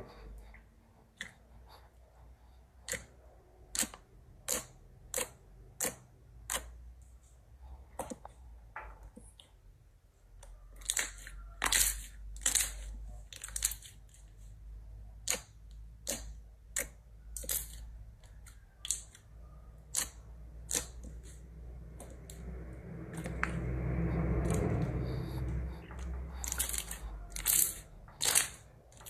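A series of sharp, irregular clicks, roughly one or two a second, with a swell of softer rustling noise near the end.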